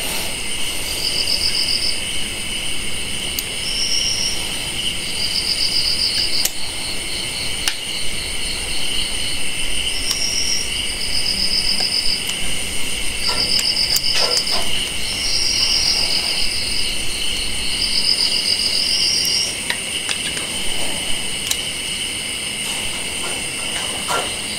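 Insects calling: a steady high-pitched buzz with short trills repeating every second or two, and a few faint clicks.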